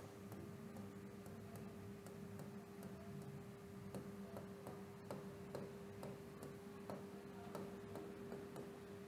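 Stylus tapping and clicking against the glass of an interactive display while writing: faint, irregular ticks about two a second, over a steady hum.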